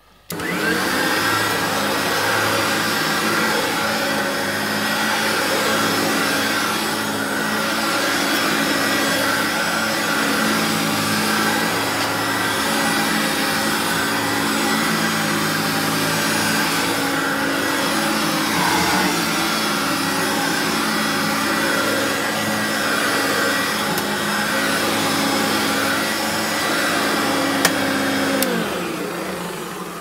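Hoover Turbopower U2196 upright vacuum cleaner switched on, running steadily with its beater brush agitating the carpet, then switched off near the end and winding down. It runs in good order, which the owner calls absolutely perfect, with nothing wrong with it.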